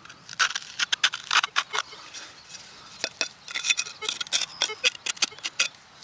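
A steel digging blade scraping and clicking against a rusty, ring-shaped metal find that looks like a bearing, prying packed dirt out of its centre hole. The quick strokes come in two runs, with a pause in the middle.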